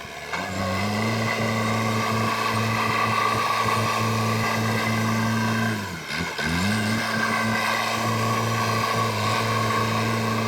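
JCB backhoe loader's diesel engine revving up about half a second in and running steadily at high revs, with a steady higher whine alongside. Around six seconds in the revs drop briefly and climb back up.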